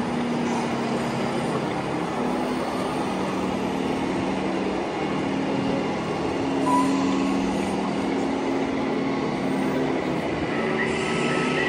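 Electronic sound modules on scale RC trucks playing simulated diesel engine running, a steady mixed hum of several trucks moving about at once.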